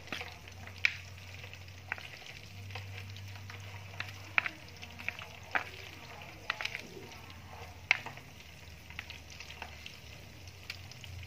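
Chopsticks stirring and tossing noodles, with irregular sharp clicks of the chopsticks against a metal pan and tray, over a low steady hum.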